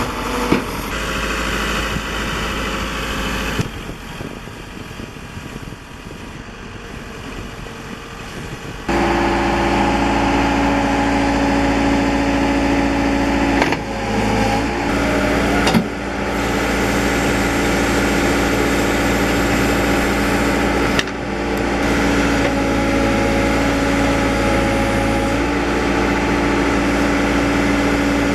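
Diesel engine of a Case 590 Super M loader backhoe running steadily. It is quieter for the first several seconds, then louder and even from about nine seconds in, with a brief wavering in pitch around the middle.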